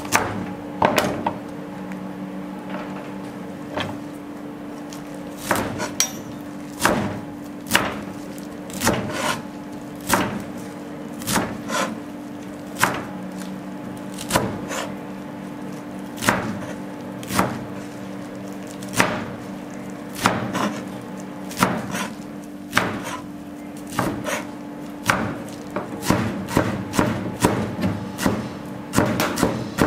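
Chef's knife chopping leafy greens on a cutting board: the blade knocks on the board about once a second, then quickens to several chops a second near the end. A steady low hum runs underneath.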